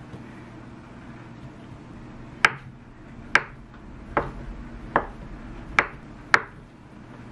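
Chef's knife dicing a block of Spam on a wooden cutting board: six sharp knocks of the blade striking the board, a little under a second apart, starting a couple of seconds in.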